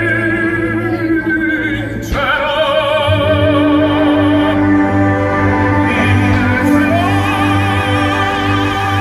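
Music: operatic singing with strong vibrato over an orchestra, sustained notes with a change of chord about two seconds in.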